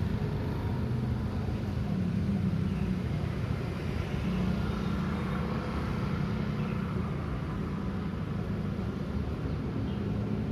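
City street traffic: cars running past at an intersection, a steady engine rumble with passing vehicles swelling and fading.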